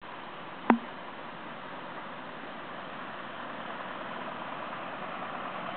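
Antique farm tractor running as it comes along the road, a steady engine noise with no clear pitch that grows slowly louder as it approaches. A single sharp click, the loudest sound, just under a second in.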